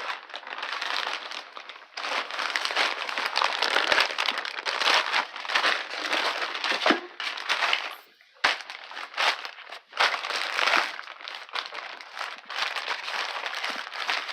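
Packaging crinkling and crackling as it is cut open and pulled apart by hand, with a brief pause about eight seconds in.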